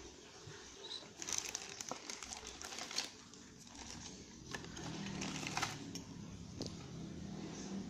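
Clear plastic parts bags rustling and crinkling, with sharp clicks of hard plastic kit parts knocking together and against the cardboard box, in two busy spells. A faint low hum comes in about halfway through.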